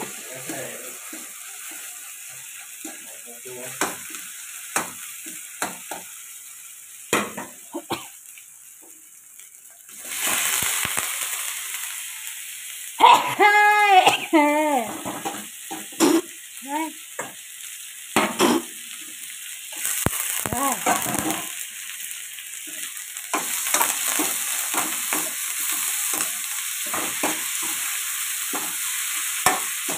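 Pounded garlic and bird's-eye chilies frying in hot oil in a wok, stirred with a spatula in short scraping strokes. About ten seconds in the sizzle jumps louder as raw chicken pieces go into the oil, and the chicken then sizzles as it is stir-fried.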